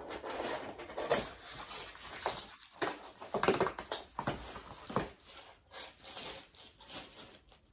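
Reed diffuser's packaging being opened by hand: irregular rustling, scraping and small knocks of the box and wrapping being handled.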